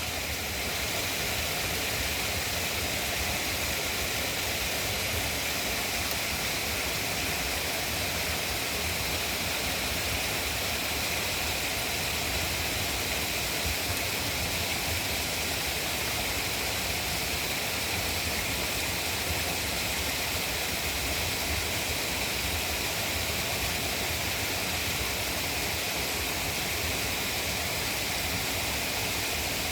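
Pond water running and splashing in a steady, unbroken rush, with a low rumble underneath.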